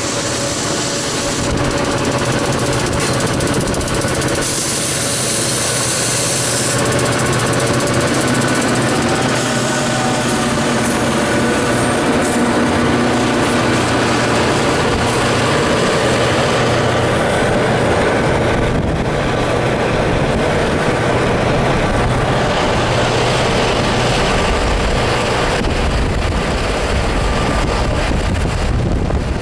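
Steady running noise from a moving car pacing a train: road and wind noise mixed with the steady drone of the EMD F-unit diesel locomotives alongside. A deeper rumble builds near the end.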